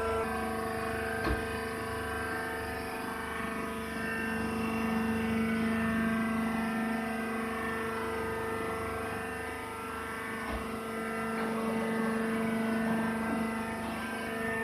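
Baling machine running with a steady multi-tone hum, with a couple of brief faint knocks.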